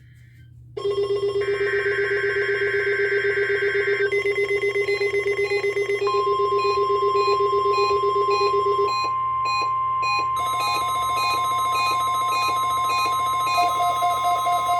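NOAA Weather Radio weekly test signal. About a second in comes a short screech of SAME digital header data. From about six seconds in the steady 1050 Hz warning alarm tone sounds. All the while, weather radio receivers set off by the alert are beeping rhythmically.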